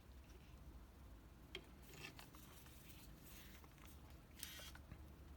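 Near silence with faint handling noise from a small handheld camcorder: a couple of light clicks, then a short scratchy rustle about four and a half seconds in.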